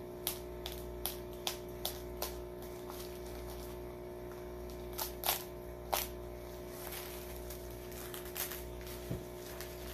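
Bubble wrap and plastic packaging being pulled off by hand, crackling in scattered sharp clicks, a quick run of them in the first couple of seconds and a few more later, over a steady hum.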